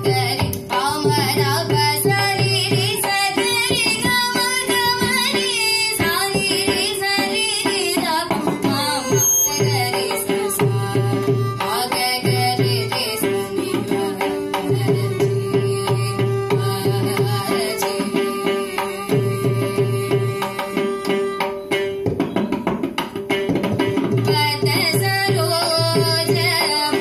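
Carnatic vocal music: a girl's voice singing ornamented, sliding phrases to mridangam strokes and violin, over a steady electronic shruti-box drone. The voice is most prominent in the first several seconds and again near the end, with melodic accompaniment carrying the middle.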